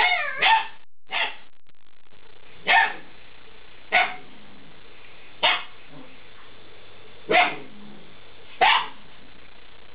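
Eight-week-old Alaskan Malamute puppies giving short barks and yips, about eight in all, spaced a second or so apart, the first few sliding in pitch.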